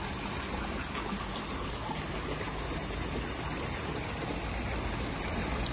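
Pool waterfall spillway pouring a sheet of water into a swimming pool: a steady rush of falling, splashing water.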